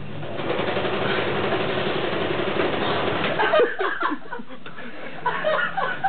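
A steady rushing noise for about three seconds, then short bursts of voices chuckling and laughing.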